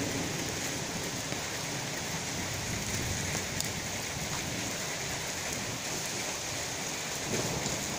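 Rain falling steadily in a thunderstorm, an even hiss of rain on wet paving and leaves.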